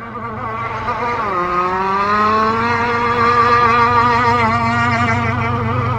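Gas-powered RC boat's two-stroke engine running on the water at speed. Its pitch dips about a second in, then climbs back up and holds steady as it gets louder. The engine is on a near-stock carburettor tune.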